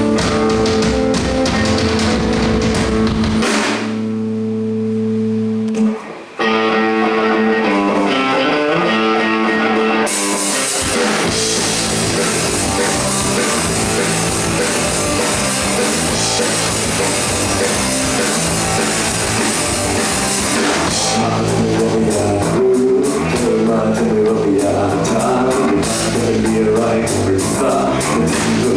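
Rock band playing live: guitar and bass first with held chords, the music dipping briefly about six seconds in, then drums and cymbals coming in with the full band about ten seconds in.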